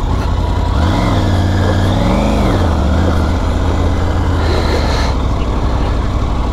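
Triumph Tiger 900 GT Pro's three-cylinder engine running at low speed on loose gravel. Its pitch rises and falls as the throttle is opened and eased about a second in, then it settles into a steady lower note.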